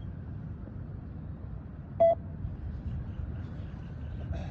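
A single short electronic beep from a beep test (multi-stage shuttle run) recording, about two seconds in, marking the end of a shuttle, over a steady low background rumble.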